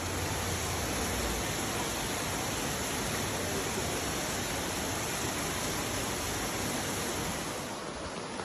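Rushing floodwater, a steady even roar of water that drops a little near the end.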